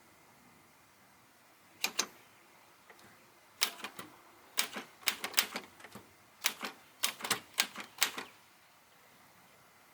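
Manual typewriter, an LC Smith & Corona Type 11, being typed on: sharp clacks of the typebars striking, a pair about two seconds in, then irregular runs of quick keystrokes until just past eight seconds.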